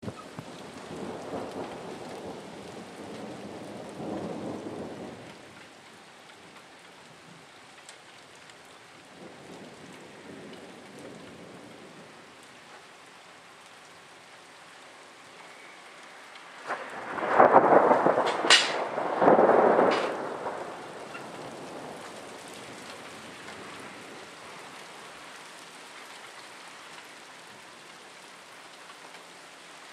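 Thunderstorm: steady rain, with rolling thunder near the start and again faintly around ten seconds. A little past halfway a loud close thunderclap with a sharp crack rumbles on for a few seconds.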